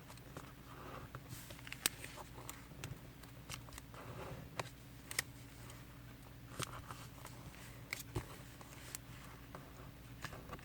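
Square origami paper being folded and creased by hand: soft rustles with scattered crisp ticks as the edges are pressed flat, over a faint steady hum.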